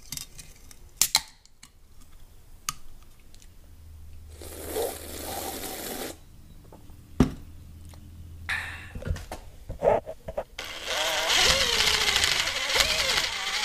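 An aluminium drink can's tab cracked open with sharp clicks about a second in, followed by scattered handling knocks. Over the last three seconds a power tool spins a socket on a long extension, driving a gas-tank mounting bolt on a motorcycle, with a steady whir that wavers in pitch.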